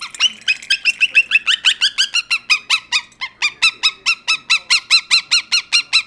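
Monk parakeet (quaker parrot) giving a rapid run of short, high squawks, about five a second, each a quick rise and fall in pitch.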